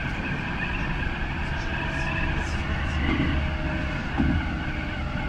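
Alstom Citadis 302 tram running along the track, heard from the driver's cab: a steady low rumble of wheels on rails with a wavering high whine over it, and a few dull knocks.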